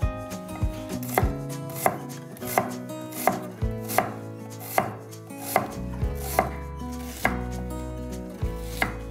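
Knife chopping food on a cutting board in a steady rhythm, about one cut every three-quarters of a second.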